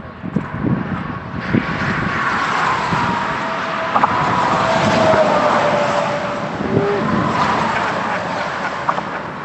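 A big rig (semi truck) passing on the road. A rush of tyre and engine noise swells and then eases off, and a high whine drops slowly in pitch as the truck goes by.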